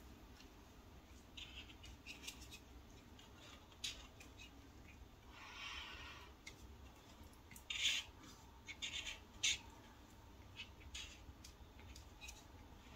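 Chisel-tip felt marker stroking across paper: faint, scratchy rubs and short squeaks, one longer stroke about six seconds in and the loudest strokes about eight and nine and a half seconds in.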